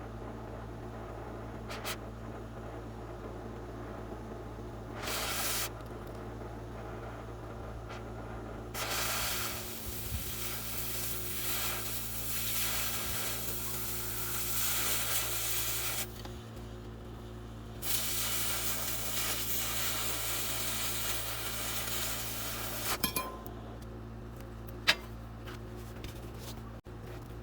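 Cheap Harbor Freight wire-feed welder arc sizzling on steel angle iron: one short burst, then two welds of several seconds each, over a steady electrical hum, with a few clicks near the end.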